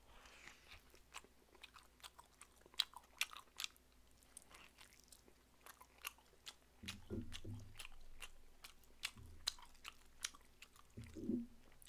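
Close-miked chewing of braised pig's trotter (jokbal): scattered wet mouth clicks and smacks as the meat is bitten and chewed. There is a short low murmur from the eater about seven seconds in and another near the end.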